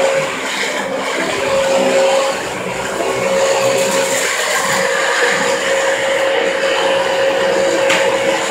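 Upright vacuum cleaner running steadily, its motor holding a constant whine, as it is pushed across the floor.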